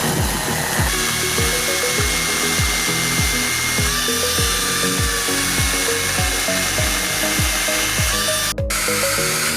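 Background music with a steady beat of about two kicks a second, over the high whine of an EMAS EMLD5512 battery chainsaw cutting wood.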